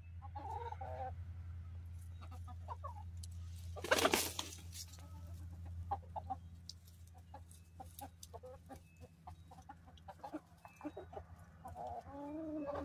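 Barred Plymouth Rock hens clucking as they feed on cracked corn, with clucks near the start and again near the end and scattered short clicks between. A steady low hum runs underneath, and a brief rushing noise about four seconds in is the loudest sound.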